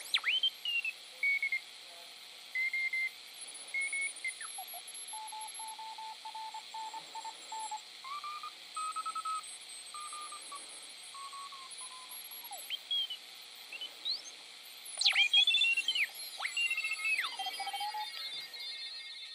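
Homebrew 40-metre regenerative receiver's speaker output while it is tuned across the band: hiss with heterodyne whistles, some held and some beeping on and off at different pitches, and whistles sliding up and down in pitch as the tuning passes signals, busiest near the end.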